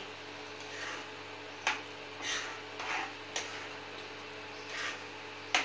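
A spoon stirring gravy in a nonstick kadai, tapping and scraping against the pan about six times, a second or so apart, over a steady background hum.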